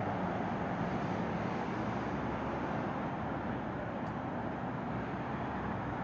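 Steady city street traffic noise: cars running on the road beside the sidewalk, an even hum with no single event standing out.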